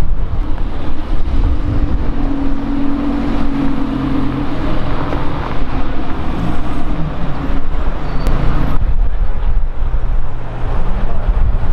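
Lamborghini Huracán's V10 pulling away through city traffic: a steady engine note for a few seconds, then rising and dipping pitch as it works through the gears. About nine seconds in, the sound cuts abruptly to general traffic noise.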